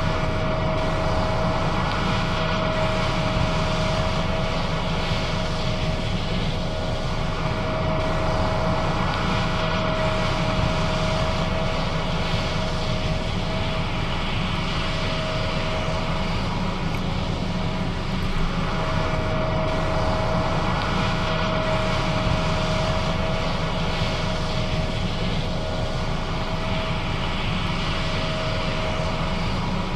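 John Deere S660 combine running steadily while harvesting soybeans: an even mechanical drone with a steady whine over it that fades out briefly about halfway through.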